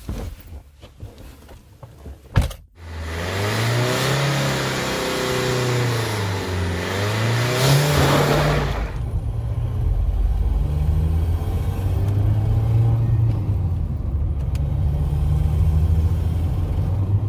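A few knocks, then a sharp knock, and from about three seconds in a Ford car's diesel engine is revved hard several times, its pitch rising and falling. From about nine seconds it runs more steadily at lower revs.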